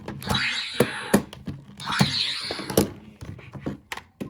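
DX Seiken Swordriver toy transformation belt being handled: sharp plastic clicks and knocks, with two short electronic sound effects from the belt's speaker, about a second each, starting near the start and about two seconds in.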